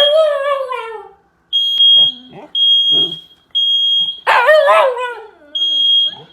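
Household smoke alarm sounding a repeated high-pitched beep, about half a second on and off in groups of three with a longer pause, the fire-alarm pattern. Over it a frightened Shiba Inu howls in two long wavering cries, one at the start and one about four seconds in.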